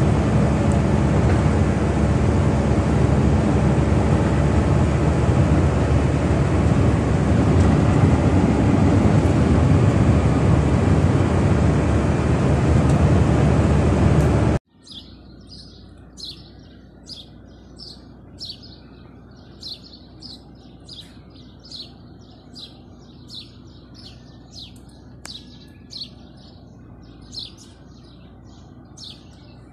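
Steady road and wind noise from a vehicle driving at speed on a highway, cutting off abruptly about halfway through. Then a bird repeating a short, high chirp about once a second over a quiet background.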